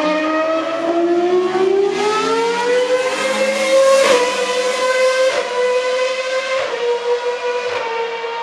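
Race car engine revving up, its note rising over about four seconds, then holding a high, near-steady pitch broken four times by brief dips in the note.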